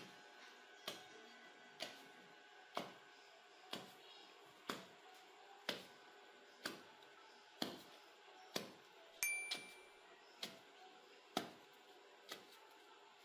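Wooden pestle pounding meat, chopped onion and cassava flour in a wooden pilão (mortar), dull thuds about once a second, to make paçoca. A brief ringing ping about nine seconds in.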